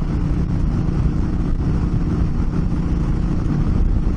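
Honda Africa Twin CRF1000L's parallel-twin engine running at a steady cruising speed on a dirt road, with wind rush over the helmet-mounted microphone.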